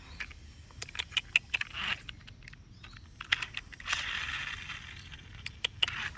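Scattered light clicks and taps, with a rustling scrape about four seconds in.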